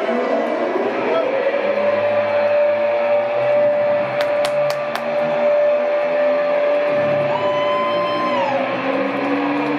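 Stadium public-address sound effect building up to a kickoff, over the steady noise of a large crowd. A tone glides up over the first second and holds steady; a higher tone joins near the end before the pitch slides down. A few sharp clicks come midway.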